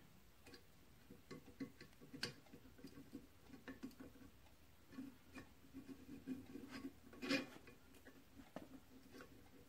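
Faint, irregular metallic clicks and taps of a hand tool working a bolt on the flyball governor on the cast-iron flywheel, with two louder clicks about two and seven seconds in.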